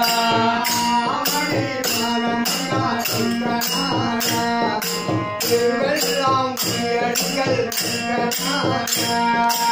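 Instrumental interlude of a Tamil bhajan: a harmonium plays a melody over held notes, while small hand cymbals and a hand drum keep a steady beat of about two strokes a second.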